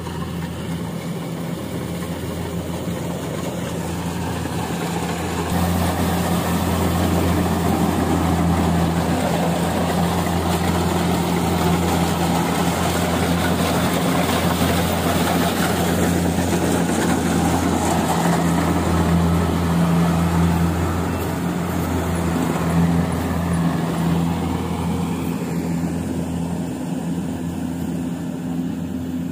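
Rice combine harvester's engine running steadily with a loud low hum, growing louder about five seconds in and easing back a little after about twenty seconds.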